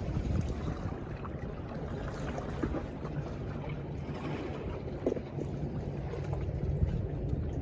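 Wind buffeting the microphone, a steady low rumble, with a brief knock about five seconds in.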